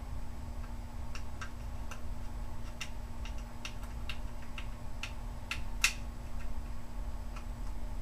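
Small screwdriver and screws clicking against the metal mounting bracket of a 2.5-inch Samsung SSD as the screws are driven in by hand: about a dozen light, irregular clicks, one sharper click a little before six seconds in.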